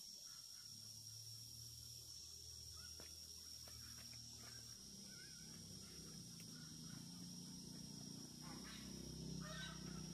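Faint animal calls: a low, wavering murmur that grows toward the end, with a few short chirps, over a steady high-pitched whine.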